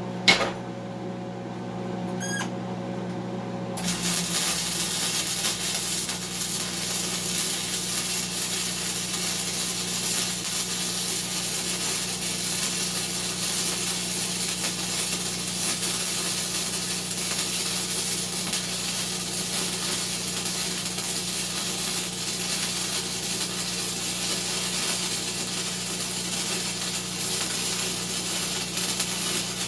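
MIG welding arc laying a weave bead on heavy steel plate: a steady hiss that starts about four seconds in and runs on. Under it a low steady hum, and a sharp click just after the start.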